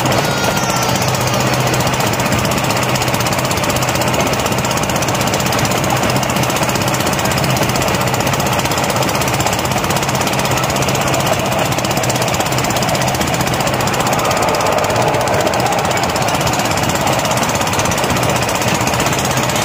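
Engine of a passenger vehicle running loudly and steadily while under way, heard from the riders' seats.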